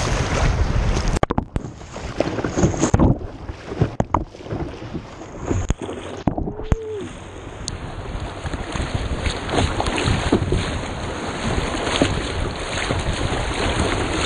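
River rapids rushing and splashing against a kayak's hull close to the microphone, with choppy slaps of water. Twice the sound goes briefly muffled, about a second in and again around six seconds in.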